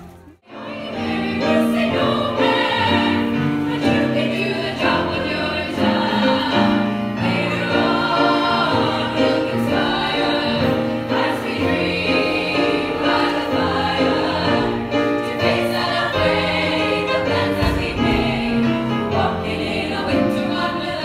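Women's choir singing in several parts, heard from the audience in a hall.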